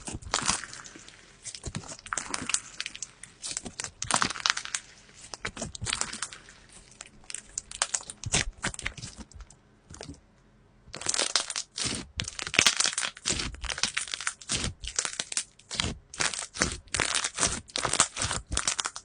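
Slime being squeezed and worked by hand, giving dense crackling, crunchy pops, with a short pause a little past halfway before the crackling starts up again.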